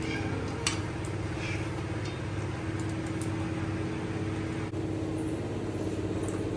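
A steady low machine hum, like a fan or motor running, with a few light clinks over it.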